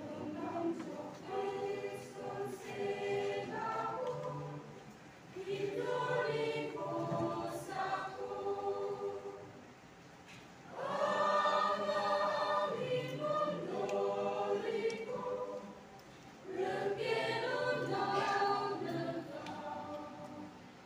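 Mixed choir of women and men singing together in long sustained phrases, with short breaks between phrases.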